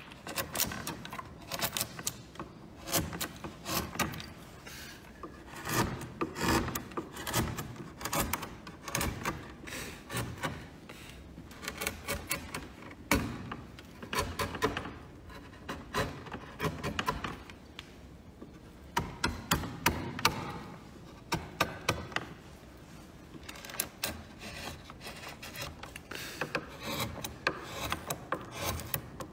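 Hand carving chisel cutting into a wooden relief panel: a long run of short, sharp cutting and scraping strokes at irregular intervals, several a second, with brief pauses between runs.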